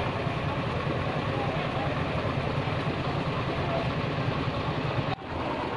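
Steady din of a busy open-air fish market: a low engine-like hum under faint background voices. It briefly cuts out about five seconds in.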